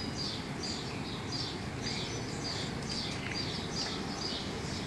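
A bird chirping over and over, two or three short high chirps a second, over a low steady background rumble.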